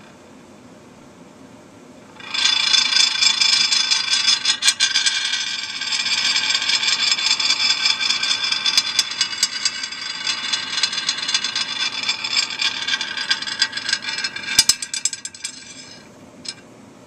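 Handmade glass spinning top that has tipped over and is whirling on its side, its glass body rubbing and chattering against a plate: starting about two seconds in, a loud, gritty rattle with many sharp clicks runs for about fourteen seconds. It stops near the end as the top comes to rest, followed by one more click.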